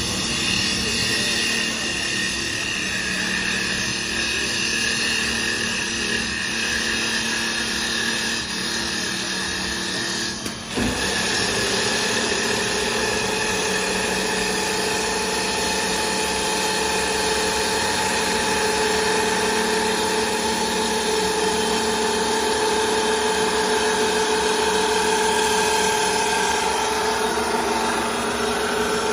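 Automatic CNC wood lathe with a sanding unit running: steady motor whine over the hiss of the spinning flap sanding wheel working a turned wooden rod. A short break with a click about eleven seconds in, after which a steadier whine sets in.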